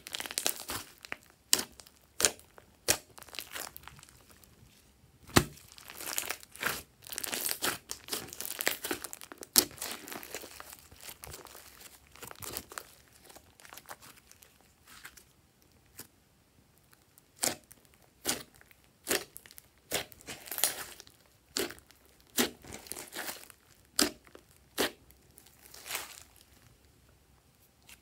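Glossy slime with small beads mixed in, kneaded, pressed and stretched by hand: sticky, squishy sounds broken by many sharp pops and clicks. The pops come in a dense run several seconds in, then one at a time with gaps near the end.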